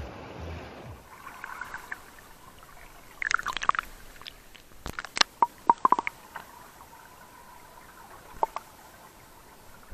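Water splashing and gurgling right against a camera held at and under the water's surface while a man swims, with bursts of sharp splashes a few seconds in and again around the middle, and one more near the end.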